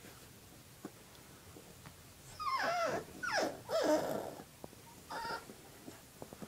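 A puppy whining and yelping in play as it mouths a person's fingers: three falling cries in quick succession about two seconds in, then one shorter cry about five seconds in.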